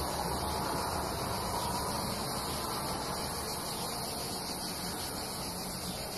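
Steady hissing background noise with no distinct events.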